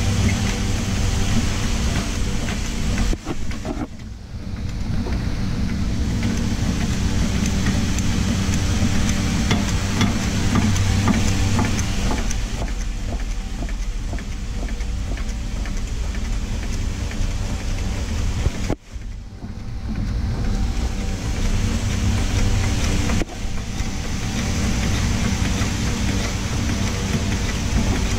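Steady machine hum made of several held tones over a hiss, breaking off sharply three times: about three seconds in, near nineteen seconds, and again a few seconds later.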